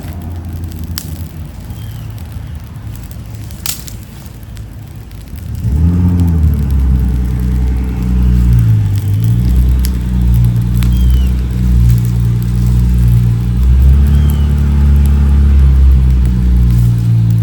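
A low steady hum with a few sharp cracks, then about six seconds in a motor engine comes in loud and keeps running, its pitch rising and falling as its speed changes.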